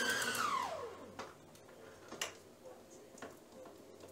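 Electric stand mixer's motor spinning down after being switched off, its whine falling steadily in pitch and fading over about the first second. After that come faint sharp clicks about once a second.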